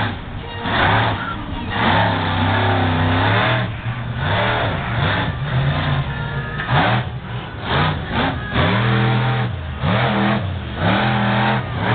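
Bigfoot Bessie monster truck's engine revving up and down again and again as the truck drives its freestyle run, each blip of the throttle rising in pitch with a burst of exhaust noise.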